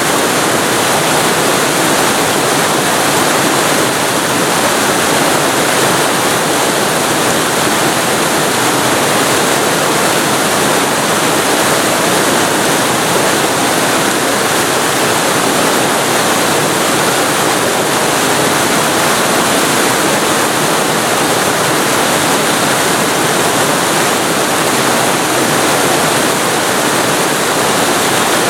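Waterfall recorded very close to the falling water: a loud, steady rush of water, even and unchanging.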